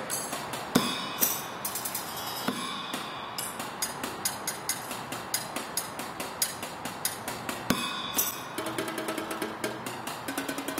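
Drums and cymbals played on a compact hand-truck-mounted kit: a busy pattern of quick sharp hits with ringing cymbal crashes. A few held pitched notes come in near the end.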